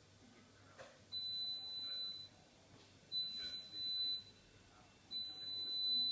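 Three long, high electronic beeps, each about a second long, spaced about two seconds apart.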